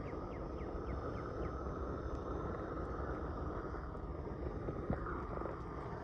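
Propane torch wand burning steadily, a continuous even rushing noise from the flame as it melts ice off a frozen car door.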